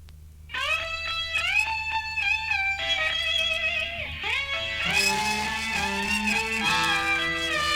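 Blues-rock music from a vinyl record. After a brief quiet stretch with a low steady hum, an electric guitar comes in about half a second in, playing bent, sliding notes, and other instruments join around five seconds in.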